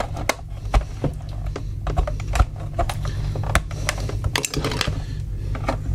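Irregular small plastic clicks and scrapes as a cord is pried out of the cable channel in the plastic base of a Siemens digital desk phone with a thin pick tool, over a steady low hum.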